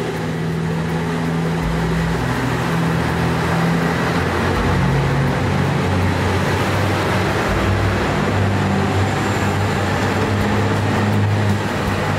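A train running: a loud low drone that steps up and down in pitch a few times over a steady rush of running noise.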